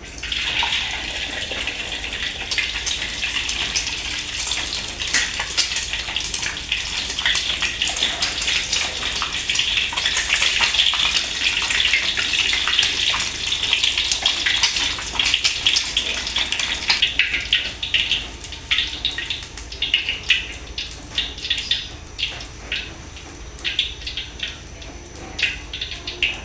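Food dropped into hot oil in a frying pan, starting to sizzle at once with a dense crackling hiss that thins to scattered pops and spits after about 17 seconds.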